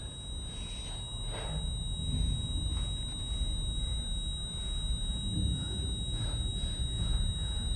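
Low, steady rumble of a subway train car, with a thin, steady high-pitched electrical tone over it and a few faint scuffling knocks.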